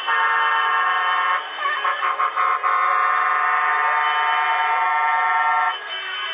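Air horns sounding several notes together as a loud chord: held for about a second and a half, then a run of short toots, then held again until it cuts off shortly before the end.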